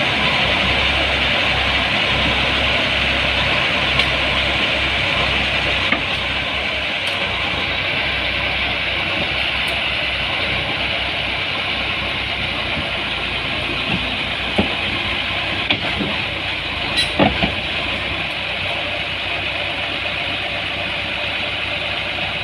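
Diesel engine of a small crawler bulldozer running as the machine crawls down off the back of a flatbed truck, with a pulsing low rumble. A few sharp metallic clanks come about two-thirds through.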